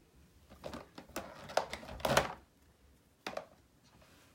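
Small craft supplies being handled on a tabletop: a quick run of light taps, clicks and clatters about a second in, then one sharp click near the end.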